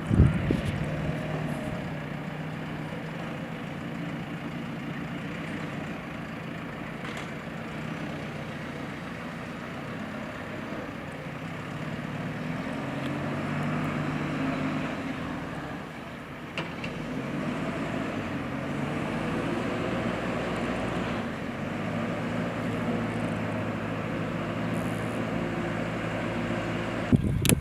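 Diesel engine of a heavy construction machine running, its engine speed rising and falling several times as it works.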